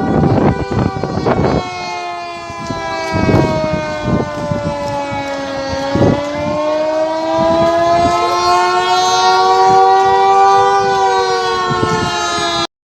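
Coastal high-tide warning siren wailing, its pitch sliding slowly down and then back up. Gusts of wind buffet the microphone in the first second or so. The sound cuts off suddenly near the end.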